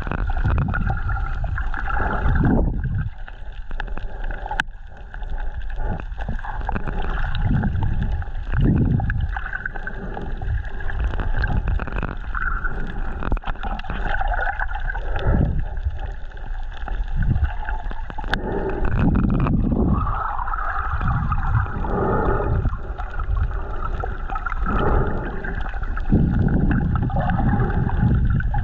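Water gurgling and sloshing, with irregular surges every second or two.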